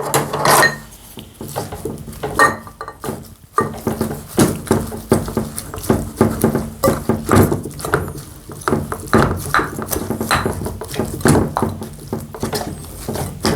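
A spoon clinking and scraping in a bowl of bibimbap as it is mixed and eaten, with close-up eating sounds: a constant run of irregular clicks and clinks.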